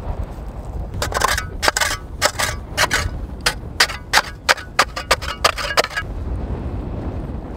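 Metal snow shovel scraping and chipping at packed snow and ice on a frozen-in stone: a quick, uneven run of sharp strokes lasting about five seconds, over a low rumble of wind on the microphone.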